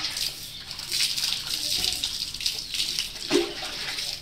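Water splashing and running during a dog's bath, a hissing splatter onto a soapy Doberman puppy and the wet floor, with a louder splash a little past three seconds in.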